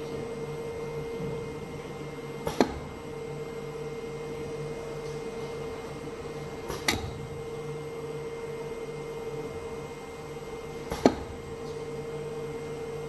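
Butter rework pump and slicing system running with a steady hum, with a sharp click about every four seconds, three in all, as the slicer at the end of the discharge pipe cuts the extruded butter tube into logs.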